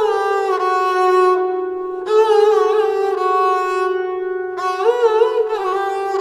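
Sarangi, a gut-strung bowed lute with many sympathetic steel strings, played with a bow in short improvised Hindustani phrases. Each phrase is a wavering, ornamented run that settles onto a long held note, and new phrases begin about two seconds in and again past the four-second mark.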